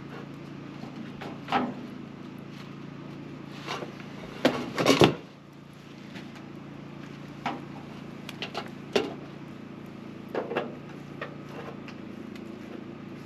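Scattered knocks and clicks of gutter pieces being handled and fitted, with a quick cluster of louder knocks about five seconds in, over a steady low hum.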